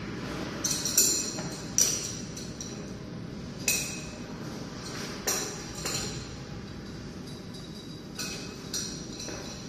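Metal hose fittings clinking and knocking irregularly as feed lines are connected to the pump of a fiberglass spray chopper machine, a few with a brief metallic ring, over a steady background noise.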